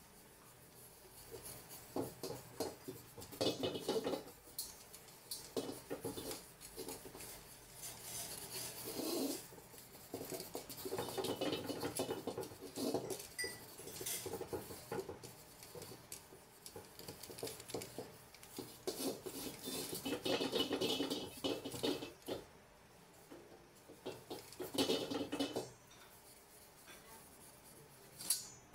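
Metal tongs gripping a wad of white towel rub and scrape oil around the inside of a hot carbon steel wok, in uneven strokes with occasional metallic clinks of the tongs against the pan: oil being spread over the surface to season the wok.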